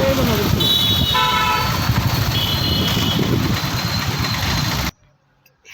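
Busy motor-vehicle traffic noise with several short horn toots and one longer horn blast about a second in; the sound cuts off abruptly near the end.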